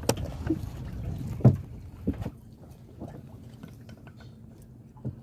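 Fishing net being hauled into a boat by hand: scattered irregular knocks against the boat and water dripping and splashing off the net, the loudest knock about a second and a half in, over a low steady rumble.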